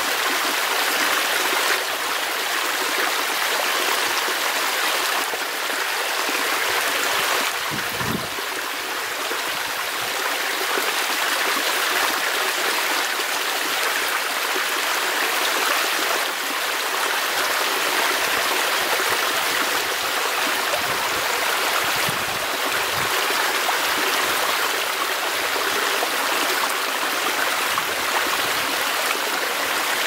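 Steady, unbroken rushing noise of outdoor nature, even and without a beat, with little bass and a few faint low rumbles.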